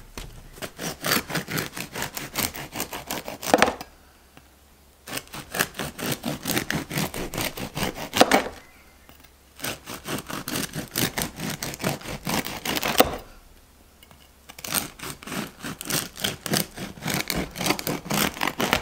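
Serrated bread knife sawing through a crusty round loaf on a wooden cutting board: four bouts of quick rasping back-and-forth strokes, each a few seconds long and ending with a sharper knock.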